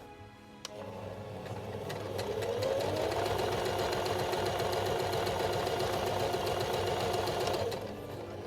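JUKI HZL-28 household sewing machine with a horizontal rotary hook test-stitching after a repair for its inner bobbin case popping out and poor needle-thread tightening. The motor speeds up with a rising whine about two seconds in, runs steadily, and stops near the end.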